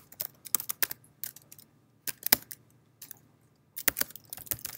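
Computer keyboard keystrokes: irregular runs of key clicks with short pauses between them, including a pause of about a second in the middle and a quick run near the end.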